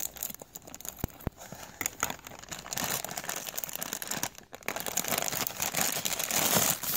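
Plastic Happy Meal toy bag being crinkled and torn open by hand: a dense crackling and rustling of plastic film with scattered small clicks, thicker in the second half.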